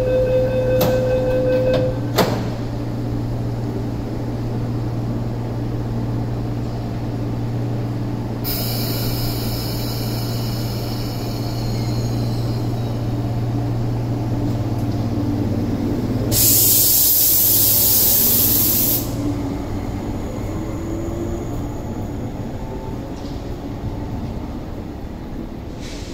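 MTR East Rail Line MLR (Metro-Cammell) electric train at a platform. Its steady door-closing warning tone stops about two seconds in, and the doors shut with a knock. Under a steady low hum, a long hiss of air comes about two-thirds of the way in, and the train pulls away with its motor pitch rising, fading near the end.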